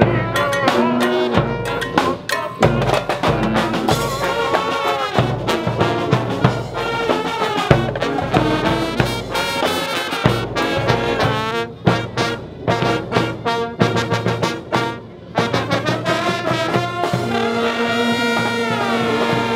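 Brass band music: horns playing a lively tune over many short percussive hits, settling into long held notes near the end.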